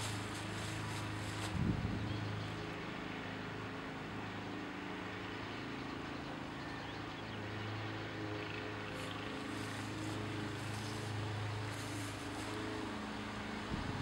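A steady low mechanical hum, like an engine or motor running at a constant speed, with a brief thump about two seconds in.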